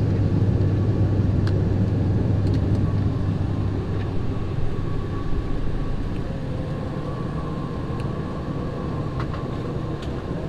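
Steady cabin drone of an ATR 42's twin turboprop engines and propellers in flight, a strong low hum with a faint steady higher tone above it. It eases slightly about halfway through.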